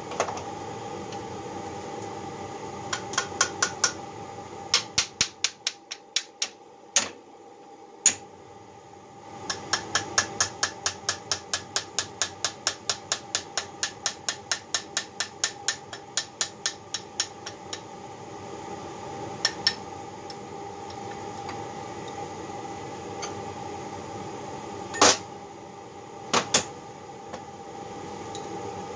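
Small hammer striking a John Deere B connecting rod held in a steel vise, knocking out the old babbitt bearing metal. Runs of quick metallic blows about four a second, then a few single, heavier knocks near the end.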